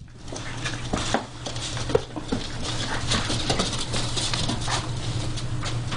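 Border collie puppies and their mother scuffling in play on a wooden floor: irregular pattering and clicking of paws and claws, over a steady low hum.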